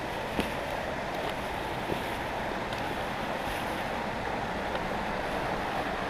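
Small mountain stream running and splashing over rocks, a steady rushing sound, with a few faint clicks on top.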